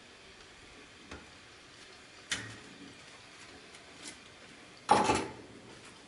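Coffee cups and a stainless steel milk pitcher handled at the espresso machine: a few light clinks and taps, then a louder clatter about five seconds in.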